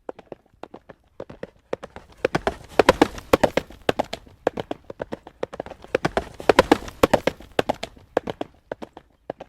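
Horse's hooves clip-clopping at a trot on a hard road surface, a quick run of sharp strikes that swells louder twice, around three and seven seconds in, and is fainter at the start and end.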